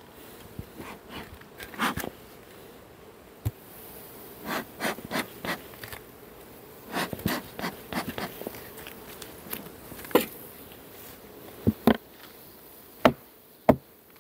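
Honeybees buzzing around an open beehive, with scattered clicks, scrapes and knocks as the hive's parts are handled; two sharp knocks near the end are the loudest.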